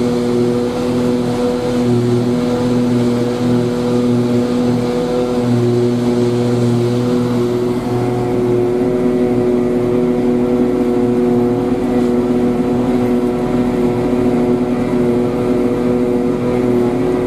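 Heavy diesel farm machinery running steadily during silage chopping, a constant engine drone with a slight change in tone about eight seconds in.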